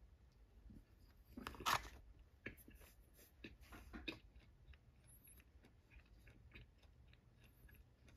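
Quiet mouth sounds of someone chewing a piece of sushi, with soft wet clicks. A brief louder clatter about one and a half seconds in, then a run of sharper clicks over the next couple of seconds, fading to faint ticks.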